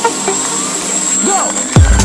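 Electronic dance music soundtrack: the beat thins out under a held high tone, then drops back in with heavy bass and kick drum about three-quarters of the way through.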